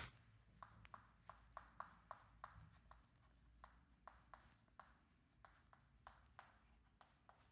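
Faint writing sounds: short ticks of a writing implement on the writing surface, quick and regular for the first couple of seconds, then sparser.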